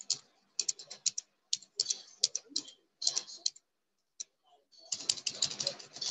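Typing on a computer keyboard: bursts of quick, sharp clicks, with a pause of about a second a little after the middle, then denser typing near the end.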